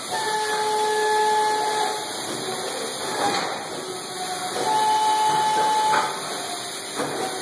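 Steady hissing machinery noise on an injection-moulding factory floor, with two steady whistle-like tones of about a second and a half each, one just after the start and one about four and a half seconds in.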